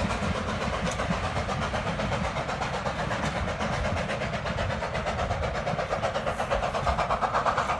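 Steam locomotive AC16 221A, a 2-8-0, working hard as it hauls its train away: a rapid, even run of exhaust chuffs, several a second.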